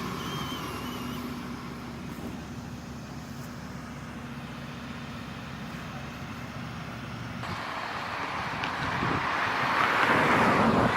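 Road traffic noise, a steady rumble with tyre hiss; about two-thirds of the way in a vehicle approaches and grows louder toward the end.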